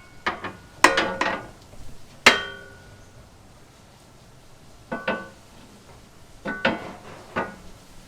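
Metal clanks and clinks, a few of them ringing briefly: a lower chassis brace bar knocking against the car's underbody and bolts as it is offered up into place. The knocks come in two groups with a short quiet gap between them.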